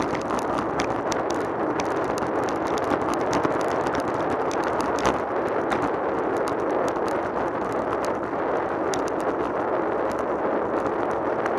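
Wind rushing over the microphone of a camera mounted on a road bike on the move, a steady roar with frequent small ticks and rattles from the road surface.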